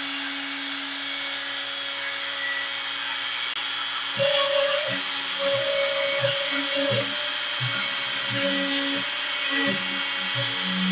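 CNC router spindle running steadily while a 90-degree V bit carves a star into a wooden board. From about four seconds in, short low hums at changing pitches come and go as the machine's axes move between cuts.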